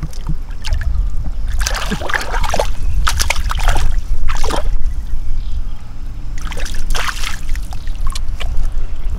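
Shallow water splashing and sloshing in a string of irregular splashes, over a steady low rumble.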